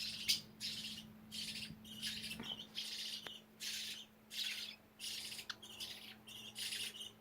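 Budgies giving a rapid series of short, raspy chirps, roughly two a second, over a steady low hum.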